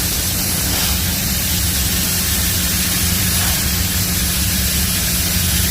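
CNC plasma cutting torch running steadily through a cut in sheet steel: a continuous loud hiss over a steady low hum.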